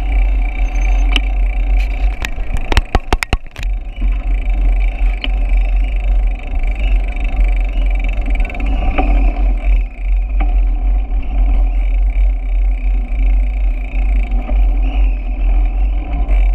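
Wind buffeting the microphone of a camera on a moving bicycle, with steady road and tyre noise and a quick run of sharp clicks about two to three and a half seconds in.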